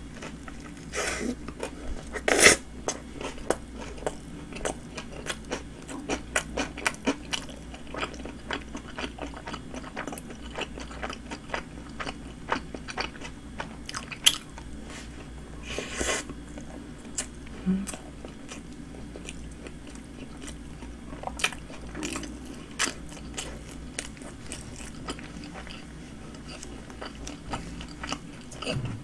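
A person biting and chewing a flatbread sandwich: a steady run of small wet clicks and mouth noises, with a few louder ones, about two seconds in and again around sixteen seconds.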